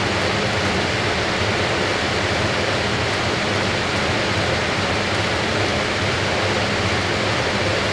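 Fisher & Paykel AquaSmart top-loading washer spinning its basket in a spin cycle: a steady rushing sound with a low hum underneath.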